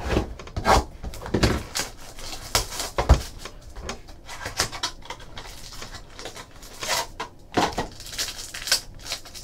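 Trading cards and cardboard card boxes being handled on a tabletop: a string of taps, slides and rustles, with a few louder knocks as things are set down, the sharpest about three seconds in.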